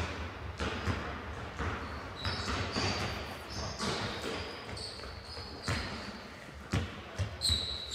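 A ball bouncing on a wooden sports-hall floor in irregular thuds that echo in the large hall, with short high squeaks in between.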